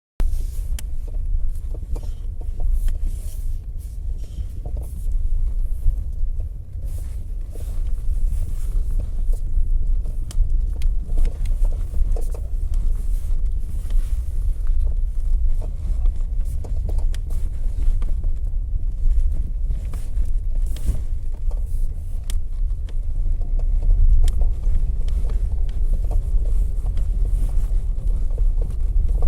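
Renault Mégane II on the move, a steady low rumble with scattered short knocks at irregular intervals: a knock in the steering.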